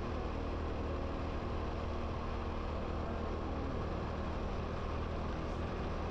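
Motor vehicle engine running at a steady speed, a constant low drone.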